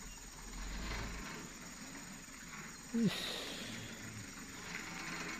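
Insects chirring steadily, with the faint low drone of a loaded truck's engine as it crawls up a muddy slope. About three seconds in there is a brief, falling, voice-like sound.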